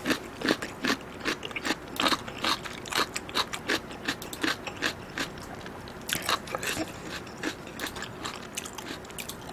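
Close-miked wet chewing of a mouthful of thick, chewy Chinese glass noodles, with irregular smacking clicks about two or three a second and a short lull a little past the middle.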